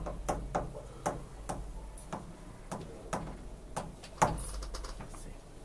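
Stylus tapping and clicking against an interactive display panel during handwriting: a string of irregular light ticks, a few each second, with one louder click a little after four seconds.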